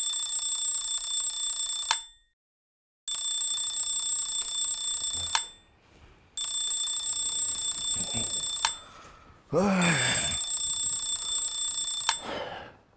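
Electronic alarm clock ringing in four bursts of steady high-pitched beeping, each about two seconds long with short gaps between. About ten seconds in, a person gives a short groan between rings.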